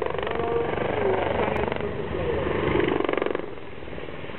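Eurocopter EC120 Colibri helicopters flying overhead in display manoeuvres, their rotors beating with a rapid, steady chop. The sound drops off a little over three seconds in.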